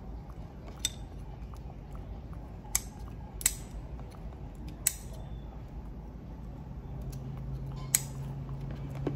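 About five sharp clicks and snaps, spaced a second or more apart, from hard water caltrop shells being cracked and handled. A low steady engine hum comes in during the last few seconds.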